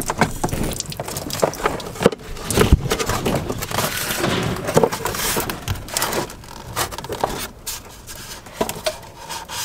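Close scraping, rubbing and irregular knocks as wiring is pulled through a cabinet opening and an RV water heater is slid into its wall cutout.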